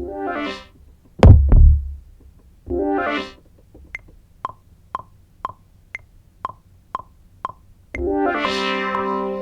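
Sparse electronic beat-making: a synthesizer keyboard plays short chord stabs with a heavy low bass hit between them. A run of short notes follows at about two a second, then a held synth chord near the end.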